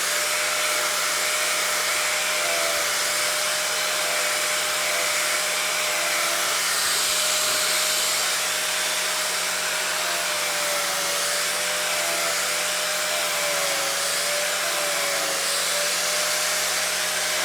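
A small electric motor running steadily under a loud rushing hiss, its hum wavering slightly in pitch.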